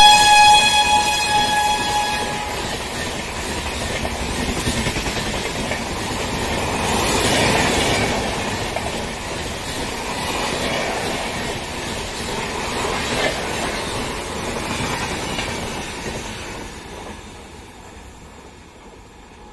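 A passing express train's horn sounds and stops about two seconds in. After it, the train's passenger coaches roll past with a steady rumble and clatter of wheels on the rails, fading away near the end as the train recedes.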